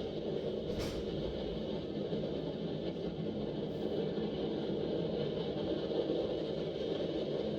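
Freight cars of a passing train rolling by, steel wheels on rail making a steady rumble, with one sharp click about a second in.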